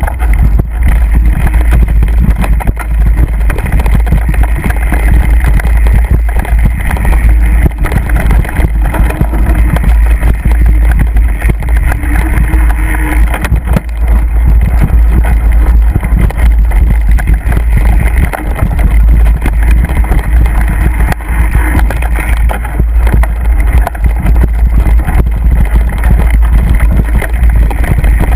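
Wind buffeting the microphone during a fast mountain bike ride on a dirt trail: a loud, constant low rumble, with many small knocks and rattles from the bike over rough ground.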